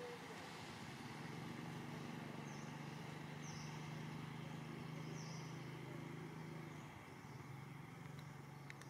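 Faint steady hum of an engine running, with a few short high chirps over it.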